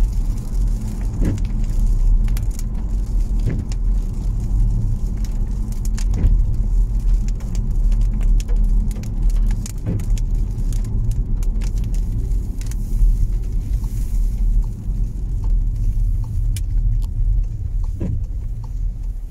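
Car cabin noise while driving on a wet road: a steady low rumble of engine and tyres, with scattered light clicks, easing slightly near the end.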